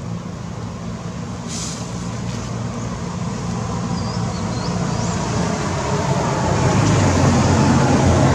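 Steady motor-vehicle traffic noise with a low engine hum that grows louder toward the end, as a vehicle comes closer. A few faint bird chirps come about four to five seconds in.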